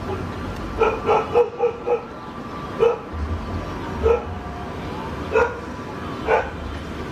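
A dog barking: a quick run of about five barks about a second in, then single barks roughly every second, over the steady low hum of taxiing jet airliners.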